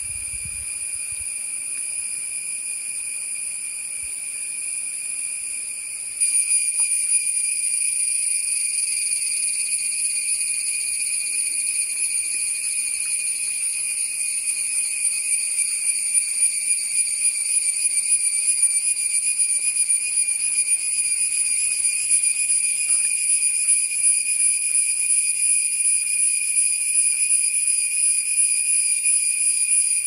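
Cicadas droning continuously in a shrill, high, pulsing buzz that grows louder about six seconds in.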